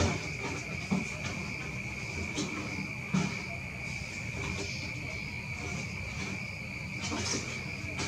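Crickets calling at night in a steady, unbroken high trill, with a few soft low knocks now and then.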